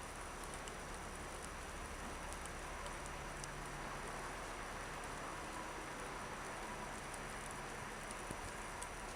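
Steady hiss of a snowstorm, with light scattered ticks like falling snow or sleet pattering on surfaces. A faint low hum of distant traffic sits underneath.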